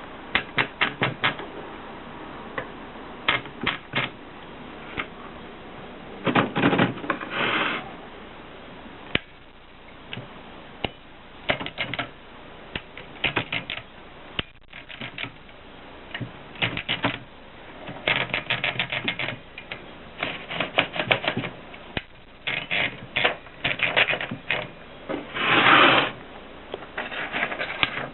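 Mercedes Selekta typewriter being typed on: runs of quick key strikes separated by short pauses, with two longer rattling noises, one about a quarter of the way in and one near the end.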